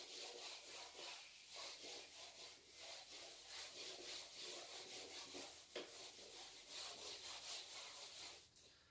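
Whiteboard duster wiping marker writing off a whiteboard: a faint run of quick back-and-forth rubbing strokes.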